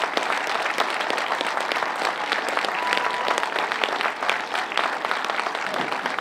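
Crowd applauding steadily, a dense patter of many hands clapping, with one brief steady tone about three seconds in.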